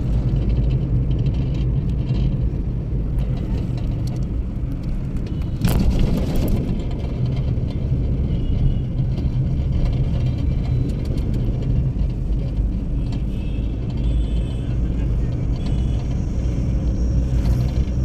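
Steady engine and road rumble of a moving car heard from inside the cabin, with a brief knock about six seconds in.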